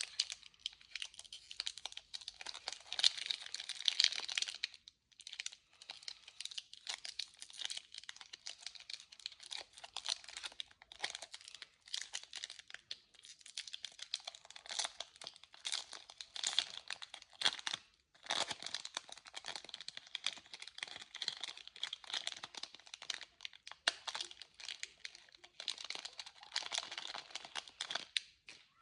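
Candy wrappers being crinkled and torn open, a dense run of close-up crackling with short breaks about five seconds in and again near eighteen seconds.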